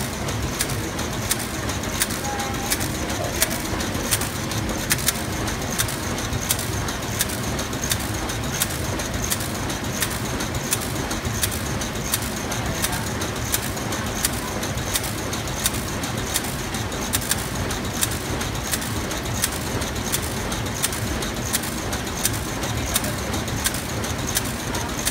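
High-speed digital colour printer running steadily, with a sharp click about twice a second as sheets are fed out onto the output stack.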